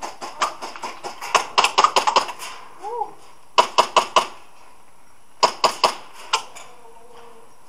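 Airsoft guns firing in quick strings of single shots, each a sharp pop: about a dozen in the first two seconds, then a group of four, then a group of five near the end.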